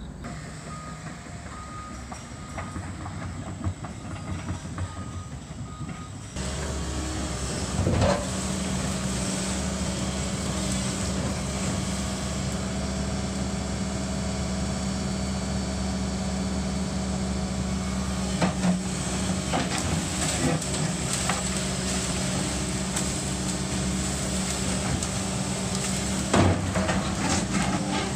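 Volvo tracked excavator's diesel engine running, getting louder about six seconds in as the bucket works into the building, with a few sharp crashes of demolition scattered through.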